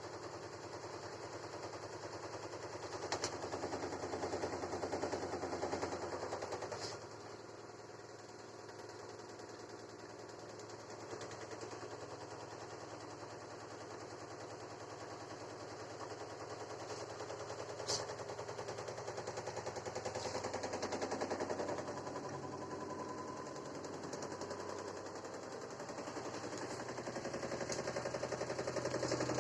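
LG F80B8LD6 direct-drive washing machine on its spin cycle, with a fast rattling knock that swells and fades in strength. This knocking appears only during spin on the new machine, which the owner likens to a hose or wire knocking against the casing wall.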